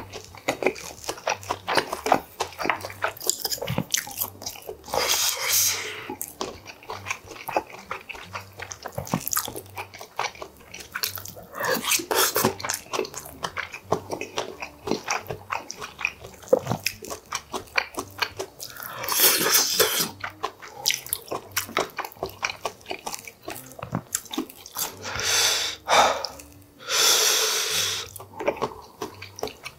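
Close-up chewing and biting of steamed and braised stingray with rice: wet mouth sounds and many small clicks and crunches. A few louder, longer hiss-like rushes of about a second each come in, twice in the last few seconds.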